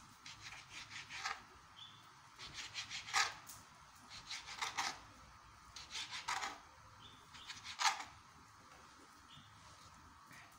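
Kitchen knife slicing through rolls of raw minced meat down onto a plastic cutting board, in five quick runs of several scraping strokes each.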